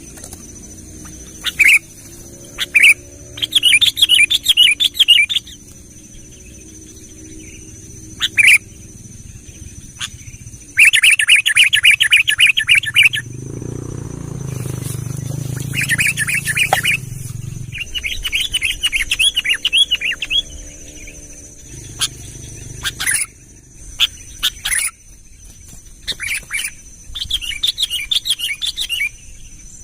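Songbird singing: sharp single chirps and rapid trilled phrases of a second or two, repeated with short pauses. A constant faint high-pitched drone sits underneath, and a low rumble swells briefly in the middle.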